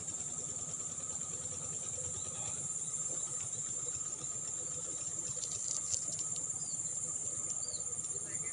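Field insects, crickets by their sound, chirring in a steady high-pitched drone with a fast pulse. A few light clicks come about six seconds in, and short high chirps follow near the end.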